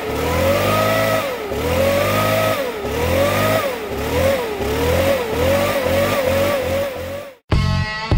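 Repeated revving. The pitch climbs and then drops back sharply again and again, the revs come quicker toward the end, and the sound cuts off suddenly.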